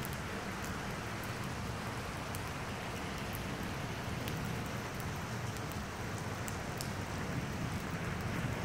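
Steady rain falling, with scattered light ticks of drops.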